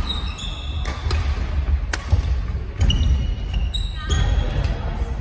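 Badminton rally: rackets striking the shuttlecock with sharp cracks every second or so, sneakers squeaking briefly on the wooden court floor, and footfalls thudding.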